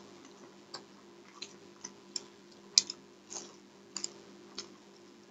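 Close-miked chewing and eating by hand: about ten irregular sharp mouth clicks and smacks, the loudest about halfway through, over a faint steady hum.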